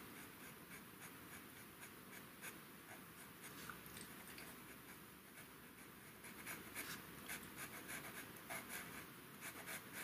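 Pastel pencil scratching on paper in short, faint strokes while colouring in a small area; the strokes come more often in the second half.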